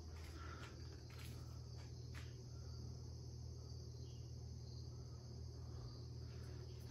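Faint, steady high chirring of insects, with a low steady hum underneath and a few faint clicks, one about two seconds in.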